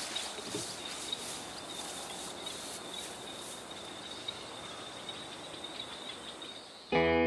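Insects calling in open countryside: a thin, steady high tone with a pulsing chirp about three times a second that fades out around the middle. Guitar music cuts in suddenly just before the end.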